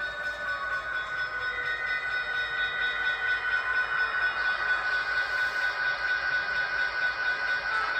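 A train running, with several high, steady whining tones that drift slowly in pitch.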